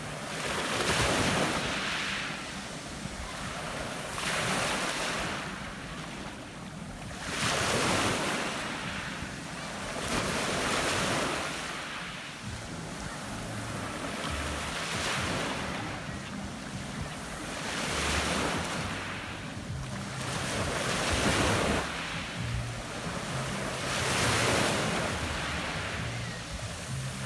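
Small Adriatic sea waves breaking and washing up a pebble beach. Each wave swells and fades, one roughly every three seconds.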